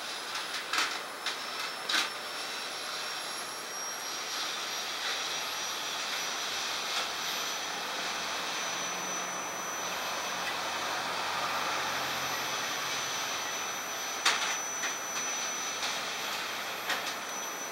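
Steady hissing noise with a thin high whine over it, and a few sharp clicks near the start and again about fourteen seconds in.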